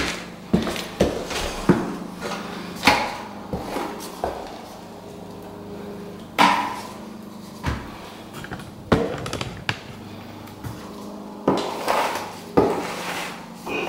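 Irregular wooden knocks and clatter as hardwood flooring boards and tools are handled and set down, about a dozen sharp taps spaced unevenly, over a faint steady hum.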